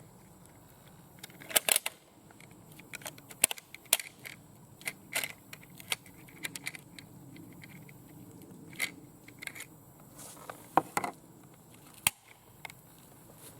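Swiss K31 rifle being loaded from a stripper clip: a series of irregular metallic clicks and clacks as the cartridges are pushed into the magazine, with a few sharper knocks.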